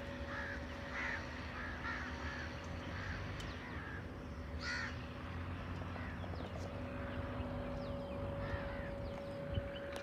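Crows cawing: short calls repeated about once a second, one louder call about halfway through, over a faint steady hum.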